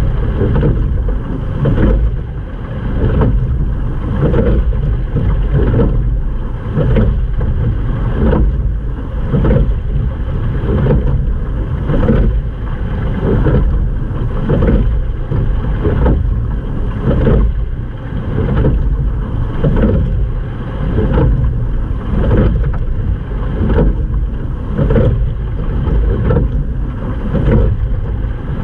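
Sculling boat moving through water under oar, the wash along the hull surging in a regular rhythm with each stroke about every one and a half seconds, with wind buffeting the microphone.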